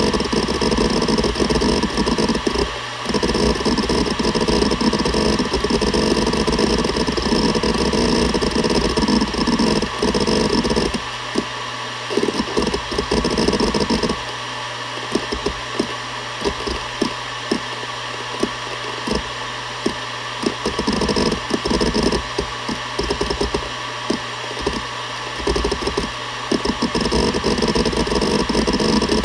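Seagate Barracuda ES.2 ST31000340NS 1 TB enterprise hard drive spinning with a steady hum and high whine while its heads seek: a dense run of rapid seek clicks for about the first ten seconds, then scattered single seeks, growing busy again near the end.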